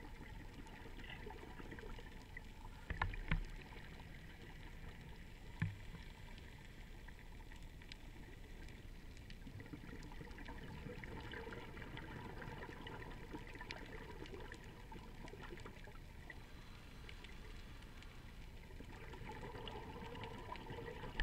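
Underwater ambience picked up by an action camera sealed in its waterproof housing: a muffled steady hiss with faint crackling, and two dull low thumps about three and about five and a half seconds in.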